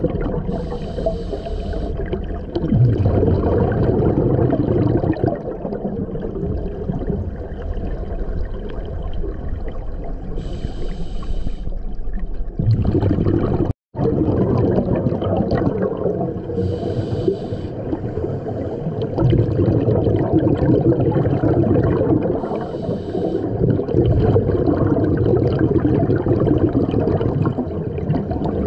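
Scuba breathing heard underwater: a hissing regulator inhale four times, six to nine seconds apart, each followed by the low bubbling rumble of exhaled air bubbles.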